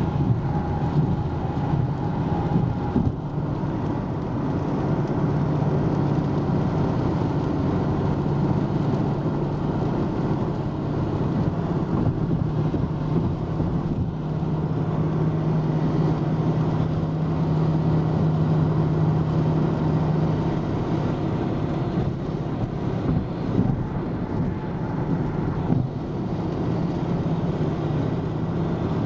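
Steady cabin noise of a car cruising at highway speed: tyre and road noise with a low, even engine hum.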